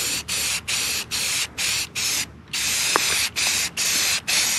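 Aerosol spray paint can spraying in short repeated bursts, about two a second, each a hiss broken by a brief gap, with a slightly longer pause about halfway through.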